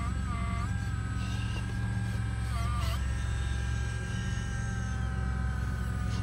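Radio-controlled heavy-equipment model running: a steady low engine-like drone with a whine on top. The whine's pitch dips and rises a few times in the first three seconds, then holds steady and slowly sinks.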